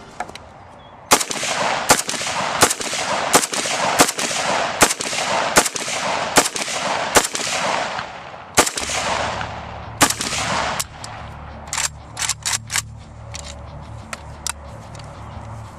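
AK-pattern rifle firing single shots at a steady pace, about one every three-quarters of a second, for a string of about a dozen. After that come a pause and a few more irregular shots.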